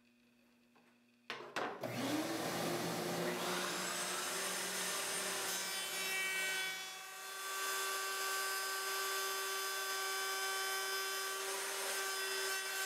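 Table-mounted router switched on about a second in, spinning up with a rising whine, then running steadily as a flush trim bit cuts the edge of a wooden door panel.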